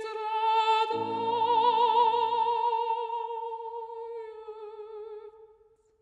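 A mezzo-soprano holds one long high sung note with vibrato while a piano chord, struck about a second in, rings and dies away beneath it. The voice then tapers off to nothing near the end.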